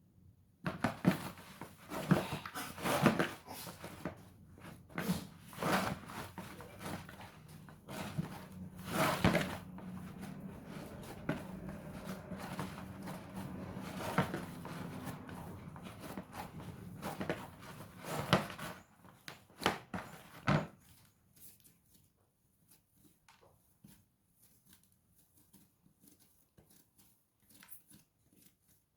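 Stiff half-cake (ngumu) dough being kneaded by hand on a work surface: irregular slaps and thumps with softer squishing between them, stopping about twenty seconds in, after which only faint light knocks remain.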